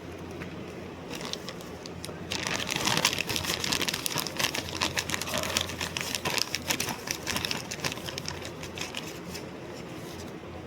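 Fast keyboard typing: dense, irregular key clicks that start about a second in, come thickest from about two seconds in, and thin out near the end.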